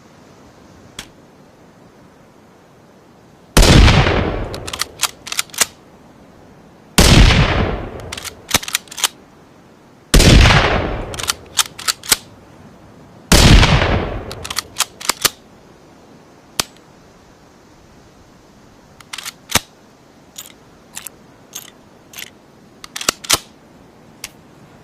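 Rifle gunshot sound effect for a custom Ruger American bolt-action rifle: four shots about three seconds apart, each ringing out for about a second and followed by a quick series of clicks as the bolt is cycled. Near the end comes a scattered run of lighter mechanical clicks and clacks.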